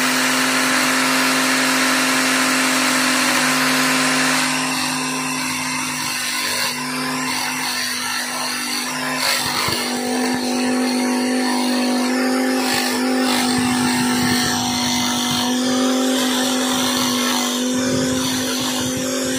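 Electric angle grinder running at full speed with a glue-stiffened cloth disc in place of a cutting wheel, a steady motor hum. About four seconds in the sound turns rougher and uneven as the spinning cloth disc chops into a bottle gourd.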